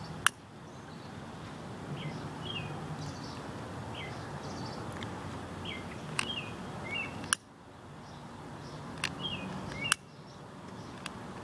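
Small birds chirping on and off over a steady outdoor hiss, with a few sharp clicks.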